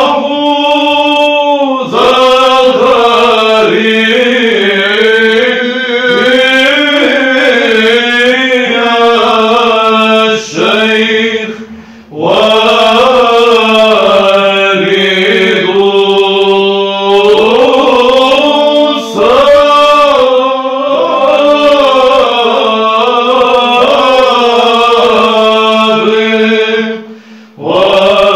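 Byzantine chant in Arabic sung by a group of Orthodox monks: a melody over a steady held drone (ison). The chant breaks off twice between phrases, about twelve seconds in and again near the end.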